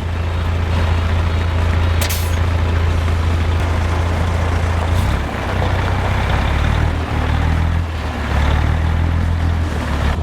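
A motor vehicle driving on the road during a test drive: a steady low engine drone with road and wind noise, its pitch shifting a couple of times, and a short sharp click about two seconds in.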